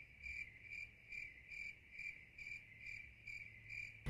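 High-pitched chirping, one even chirp about every half second, steady and regular, with nothing else loud over it.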